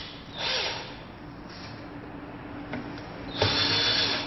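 Cordless drill-driver running in short bursts as it backs out the screws holding a hoverboard's shell: a brief run about half a second in, a faint one near 1.5 s, and a longer, louder run from about 3.4 s.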